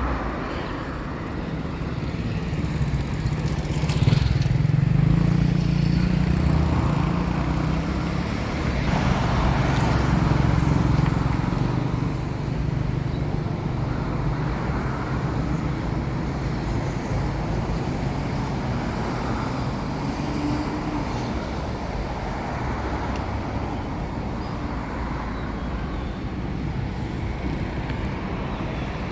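Road traffic on a city street: vehicle engines and tyres running past in a steady hum, with a louder stretch about four to eleven seconds in as vehicles pass close by.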